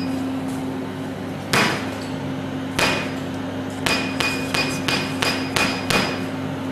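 IPL (SHR) handpiece firing its flash lamp: sharp snapping clicks, two spaced well apart and then a run of about three per second, matching the machine's 3 Hz pulse setting. Most snaps come with a short beep, over the machine's steady cooling hum.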